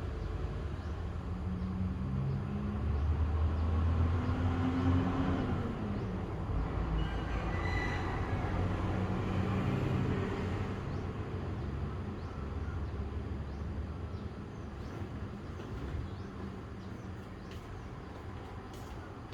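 A motor vehicle's engine rumble passing by, swelling to its loudest about four seconds in and then slowly fading away.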